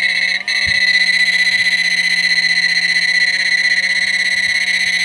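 Mini MOSFET inverter kit running with a steady high-pitched whine and a low hum, briefly dipping about half a second in, while powered from a nearly drained battery.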